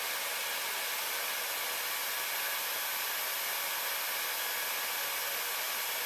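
Heat gun blowing hot air with a steady, even hiss, heating low-temperature solder paste in a reballing stencil until the solder balls form.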